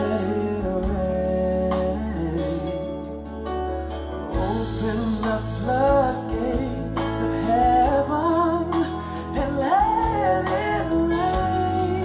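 A gospel worship song playing through a pair of hi-fi stereo speakers in a room: a singer over a steady bass line and sustained chords, the voice strongest in the second half.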